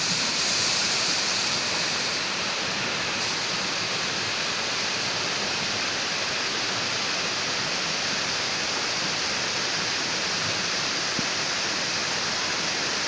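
Lapopu waterfall's water crashing down, a steady, even rush.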